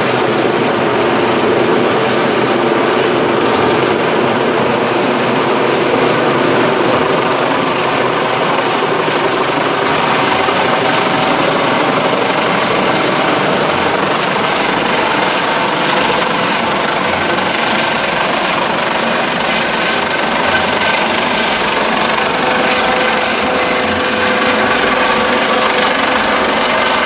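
Rescue helicopter's rotor and turbine engines running steadily as it hovers close by: a constant rush of noise with a faint steady whine.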